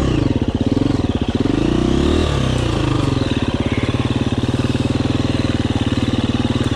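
2019 KTM 350 EXC-F's single-cylinder four-stroke engine under way on the trail. Its revs rise and fall a few times in the first couple of seconds, then hold steady at low revs.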